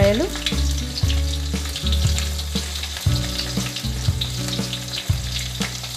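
Chopped onions sizzling and crackling in hot oil in an iron kadai, just added to the tempering of cumin and mustard seeds.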